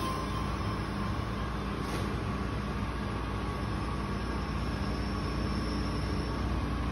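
Steady low hum and hiss of background room tone, with no distinct event standing out.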